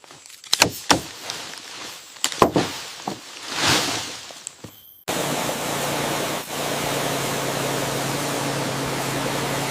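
A few sharp snaps and a swish, then about five seconds in a motorised tool starts abruptly and runs steadily: a loud, even hiss over a low motor hum.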